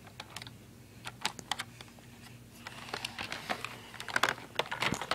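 Irregular plastic clicks and knocks as a Roomba battery is pushed and jiggled in its compartment, not clicking into place, coming thicker and faster over the last couple of seconds.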